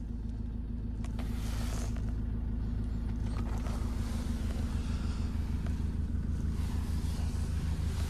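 Land Rover Defender 90's 2.2-litre four-cylinder diesel engine idling steadily, heard from inside the cabin.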